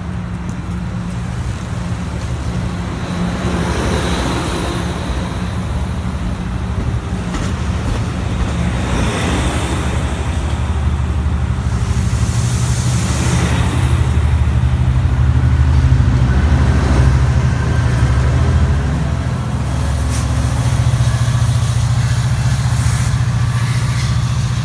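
Amtrak Pacific Surfliner train rolling slowly through a station: a steady low diesel rumble, with hissing noise from the moving cars swelling a few times.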